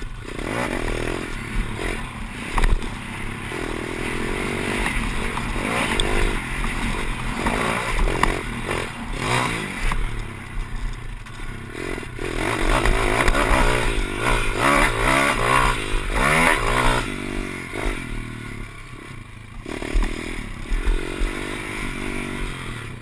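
Pit bike engine revving up and down as the rider accelerates, shifts and backs off along a dirt track, with rattling and wind on the onboard microphone.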